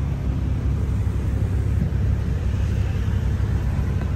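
Motor vehicle running with a steady low rumble.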